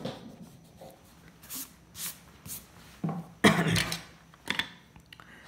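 Drawing tools and paper being handled on a desk: a series of short rustles and knocks, the loudest about three and a half seconds in, as the compass and ruler are picked up and laid down.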